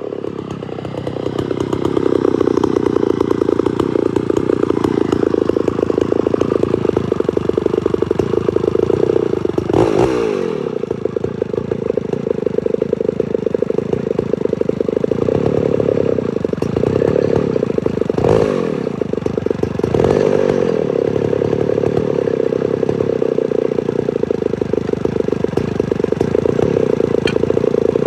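Homelite Super XL-925 82cc two-stroke chainsaw engine, with its governor blocked off, running steadily without cutting. It comes up to speed in the first two seconds, then briefly drops and picks up again about ten seconds in, and twice more around eighteen and twenty seconds in. The owner judges it to be starving for fuel on the low-speed carburettor circuit.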